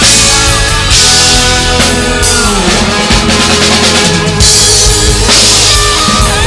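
Acoustic drum kit played along with a recorded hard-rock song: kick, snare and toms, with crash cymbals hit near the start, about a second in, and again after about five seconds. The song's guitars and voice are heard under the drums.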